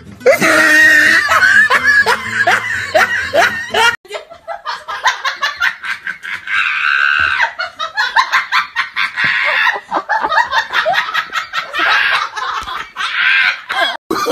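Hearty human laughter in quick, repeated ha-ha pulses; it breaks off about four seconds in and a different laugh takes over.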